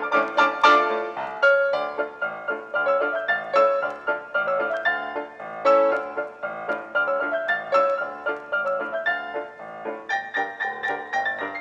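Background piano music: a steady stream of struck notes, light and melodic.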